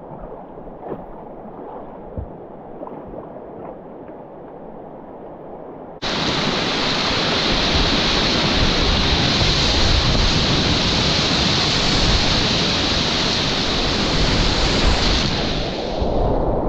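Whitewater river from a kayaker's helmet camera. First the quieter rush of moving water with a few light knocks. About six seconds in, a cut brings the loud, steady rushing of a big foaming rapid, which dulls for a moment near the end.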